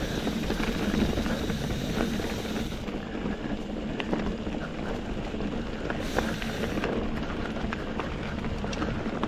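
NS Eccentric Chromo steel hardtail mountain bike rolling over a dirt trail: a steady rumble from the tyres, with scattered clicks and rattles.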